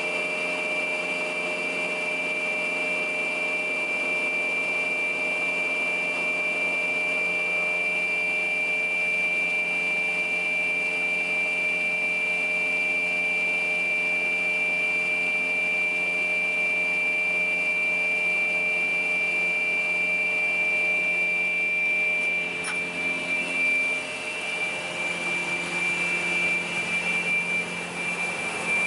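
PAUL K3U800 multi-rip saw running without a workpiece, its electric-driven arbor of circular saw blades spinning at steady speed with a constant high whine.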